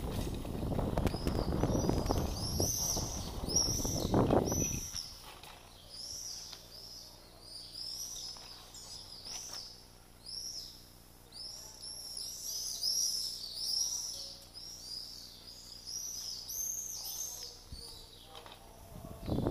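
Mountain-bike tyres rumbling over stone paving for the first five seconds or so, then the rumble stops and small birds chirp repeatedly, many short high chirps overlapping.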